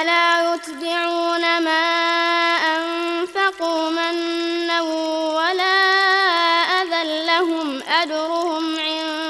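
Melodic Quran recitation: one high-pitched voice holding long, ornamented notes, with short turns and glides in pitch and a few brief breaks for breath.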